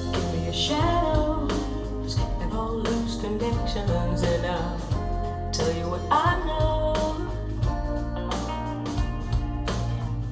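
Music: a song with a singing voice over guitar and a steady bass line.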